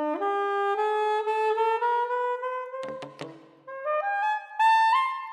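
Saxophone ensemble: a soprano saxophone plays a line that climbs step by step, cut about three seconds in by two short, loud chords from the full saxophone quartet, baritone at the bottom. The soprano then climbs on.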